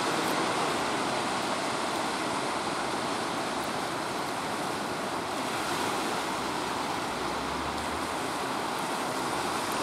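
Surf breaking and washing in: a steady rushing noise of churning water.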